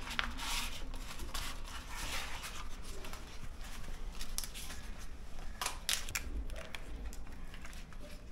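Fresh banana leaf being folded and creased by hand, giving a stiff rustling with short crackles, the sharpest two close together about six seconds in.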